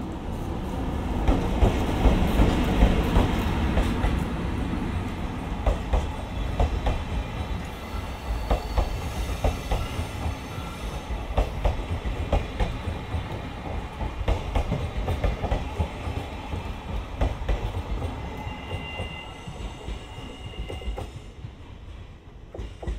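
An EF64 electric locomotive hauling 12 series passenger coaches passes close by. It is loudest as the locomotive goes past in the first few seconds, then the coaches' wheels click repeatedly over the rail joints, and the sound fades as the train pulls away near the end.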